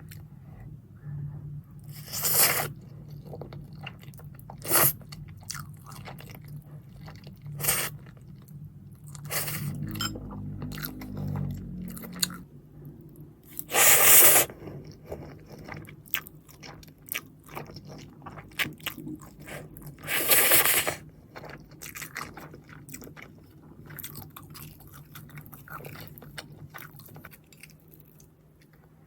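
Close-miked crunching and chewing of fried chicken: several loud crisp crunches, two of them longer ones about halfway and two-thirds of the way through, with softer chewing clicks in between, over a steady low hum.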